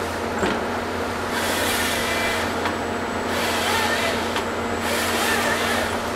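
Volvo EC210 excavator's diesel engine running steadily while it works a LogMax 7000XT harvester head, with two stretches of harsh hissing noise from the machine, each about two seconds long, in the first and second halves.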